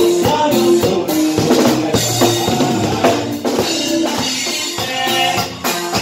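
Live band music with the drum kit to the fore: bass drum and snare keep a steady dance beat under bass and held melody notes.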